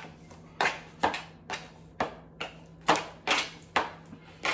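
Seasoned raw chicken pieces being mixed in a bowl: a regular run of short scraping strokes, about two a second, over a faint steady hum.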